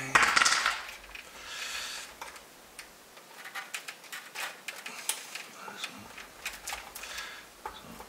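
A spring-loaded desoldering pump fires with a sharp snap and a short rush of air just after the start, sucking solder from a capacitor pad under a soldering iron. Scattered light clicks and taps of the tools against the circuit board follow.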